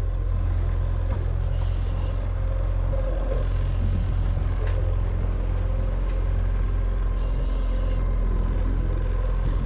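Boat motor running steadily underway: a constant low drone with a steady hum. Three short, higher hissing sounds come over it, about 1.5, 3.5 and 7.5 seconds in.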